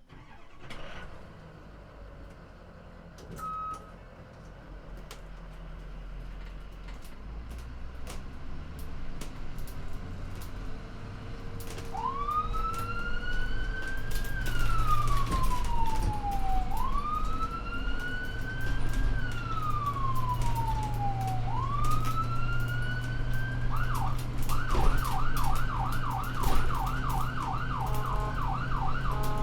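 Ambulance driving, its engine running low and growing louder. About twelve seconds in, its siren starts a slow wail that rises and falls twice, then switches to a fast yelp near the end.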